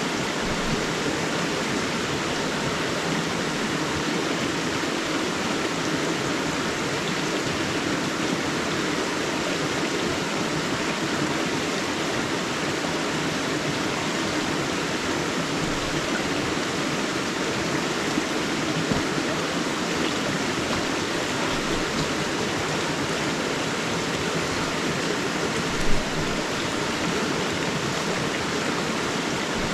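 River water rushing and splashing in a steady, unbroken flow, with a single brief knock about 26 seconds in.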